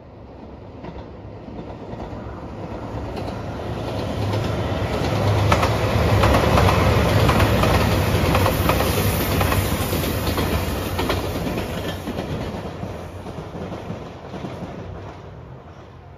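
JR Shikoku 2700 series diesel express train passing at speed. Engine and wheel noise build to a peak in the middle and then fade as it goes away, with a few clacks as the wheels cross rail joints.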